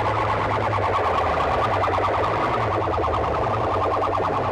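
A DJ competition sound system's horn loudspeakers and bass boxes blasting a loud, distorted, siren-like tone that warbles rapidly, over a steady deep bass drone.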